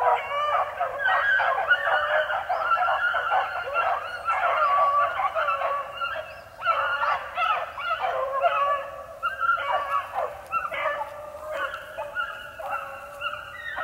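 Young beagles baying on a rabbit's trail, several hound voices overlapping in a continuous chorus, with a short lull about six and a half seconds in.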